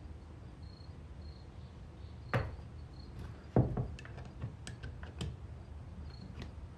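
Bolts and sockets being handled: two knocks, the louder about three and a half seconds in, then a scatter of light clicks.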